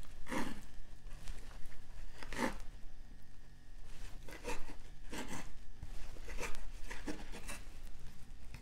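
Kitchen knife cutting grilled seitan into small cubes on a wooden chopping board: a short cutting sound with each stroke, about seven strokes at uneven intervals.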